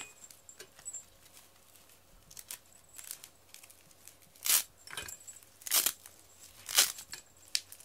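Hook-and-loop fastener strips on a mesh cat hammock cover being ripped apart and pressed together as the cover is fastened around the metal frame. There are a few soft rasps, then three loud rips about a second apart in the second half.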